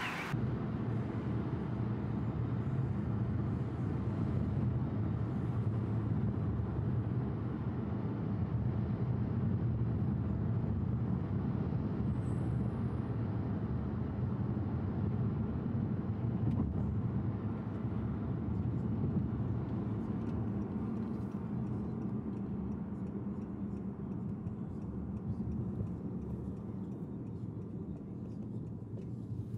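Steady low rumble of a moving car's tyres and engine, heard from inside the cabin.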